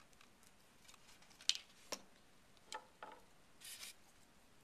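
Light clicks and taps of small objects handled on a tabletop, a glue stick and a small plastic bottle of CA glue, with the sharpest click about a second and a half in and a brief rustle near the end.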